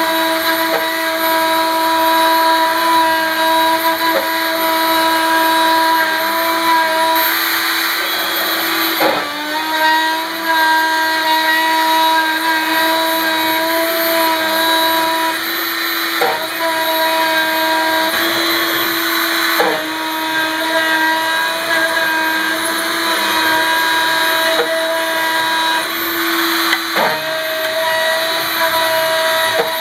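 An Isel CNC router's spindle drives an end mill through an aluminium block, milling a pocket. It makes a steady whine made of several tones. The whine dips and shifts pitch briefly four times, then settles back.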